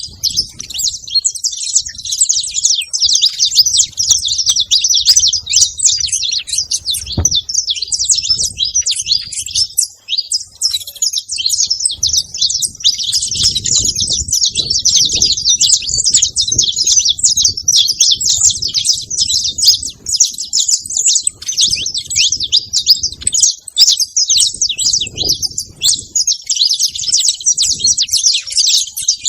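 Saffron finches chirping and calling without pause in a dense, high-pitched chatter.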